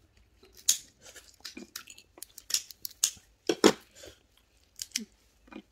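Kitchen scissors snipping and cracking through red snow crab shell: a run of sharp, irregular clicks and crunches.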